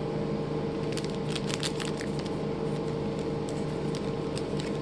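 Plastic trading-card pack wrapper crinkling as it is handled, in runs of quick crackles about a second in and again near the end, over a steady low hum.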